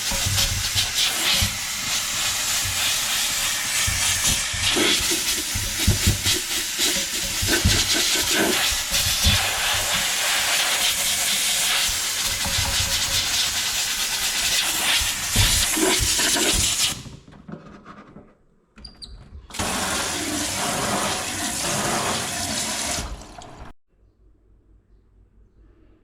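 Steam cleaner blasting steam with a steady loud hiss, with low knocks from the nozzle working against the gas stove. The steam stops about 17 seconds in, starts again for a few seconds, and cuts off suddenly near the end.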